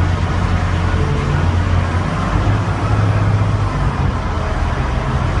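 Diesel engine of a Cat R2900G underground loader running steadily with a deep, even drone, heard inside a rock mine tunnel.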